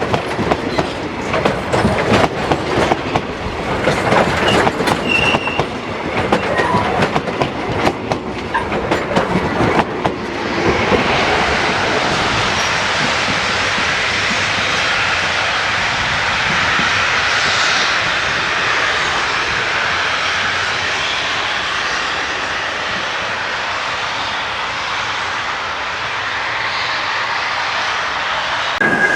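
A train passing close by: its wheels clatter over the rail joints for about the first ten seconds, then give way to a louder, steady rolling noise of wheels on rail.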